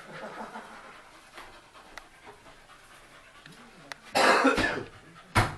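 Dog panting, then a loud noisy clatter lasting under a second about four seconds in and a sharp knock just before the end.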